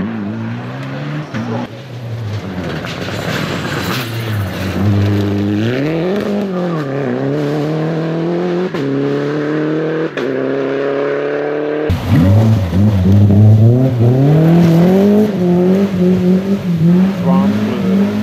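Rally car engines revving hard through the gears, the pitch climbing and dropping sharply at each gear change. About twelve seconds in, the sound cuts abruptly to another car accelerating, louder.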